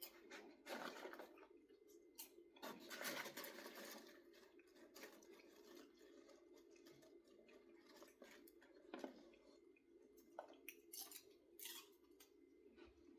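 Faint chewing and crunching of popcorn, with scattered small clicks and a few short noisy bursts.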